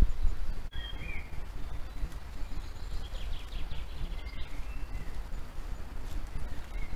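Woodland ambience: a steady low rumble with faint high bird calls over it. There is a short call about a second in and a quick run of chirps around three seconds in.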